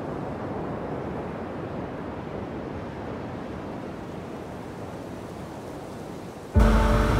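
A steady outdoor rush of wind and surf. About six and a half seconds in, it cuts off abruptly and a much louder sound of steady held tones begins.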